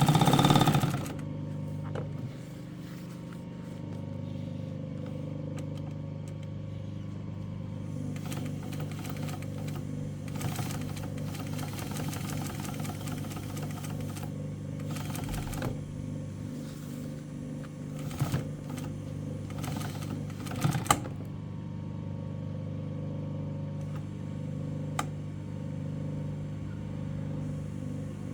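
Seiko STW-8B walking foot sewing machine running, its motor humming steadily. Stretches of louder mechanical noise come from about eight to fifteen seconds in, with a few sharp clicks later.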